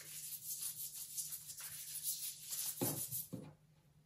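Paintbrush spreading watered-down PVA glue over a sheet of copy paper: a soft, repeated swishing of bristles on wet paper. A couple of light taps follow near the end as the brush goes back into the plastic glue pot.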